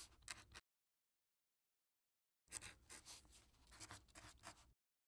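Faint pen-scratching sound of handwriting on paper, a sound effect for the script text, in two stretches: one ending just after the start and one from about two and a half seconds in until near the end, with dead silence between them.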